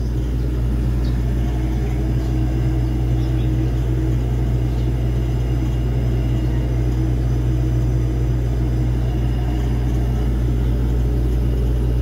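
Commercial display refrigerator running with a steady low hum, working again with its faulty cold control (thermostat) bypassed.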